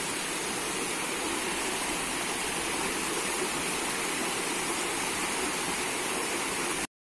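River water flowing steadily, an even hiss with no distinct events. It cuts out completely for a moment near the end.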